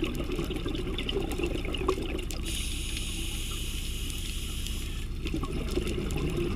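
Underwater sound picked up by a camera in its housing while diving: a steady low rumble and water noise. A hiss lasting about two and a half seconds comes in the middle.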